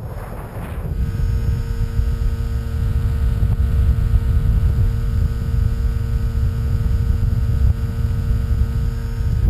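Wind rumbling on the on-board microphone of a Skywalker 1900 FPV plane in flight, with the steady hum of its electric motor and propeller coming in about a second in and holding at one pitch.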